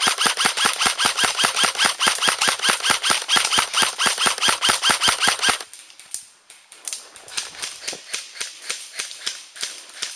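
Airsoft gun firing a long full-auto burst close by, a rapid even string of about seven shots a second lasting about five and a half seconds. After a short pause, fainter and more scattered airsoft fire goes on to the end.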